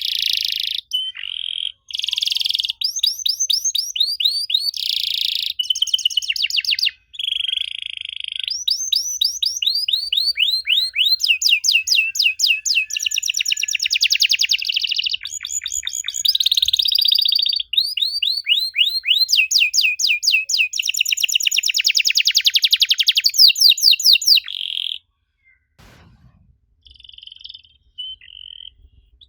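Domestic canary singing a long, fast song of trills and rapidly repeated notes, a lure song meant to set young canaries singing. The song breaks off about four seconds before the end, with a brief low thump and a few soft notes in the pause.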